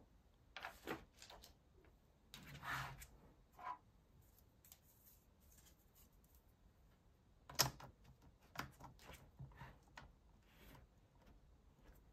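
Faint, sparse handling noises of a plastic tablet screen-cover frame being fitted: a few light rustles and taps, then a sharp click about seven and a half seconds in, followed by several lighter clicks as the frame is pressed into place.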